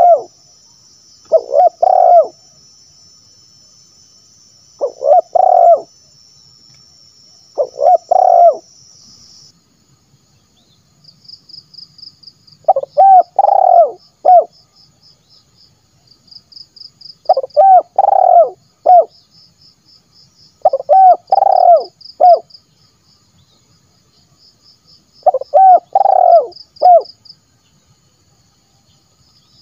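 Spotted dove cooing, about eight phrases of two or three low coos each, repeated every few seconds.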